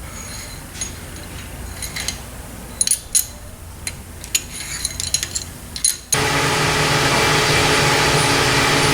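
Steel flat-tappet lifters and tools clinking and tapping against the cast iron engine block as the lifters are pulled from their bores, in scattered sharp clicks. About six seconds in, a loud steady machine hum starts abruptly.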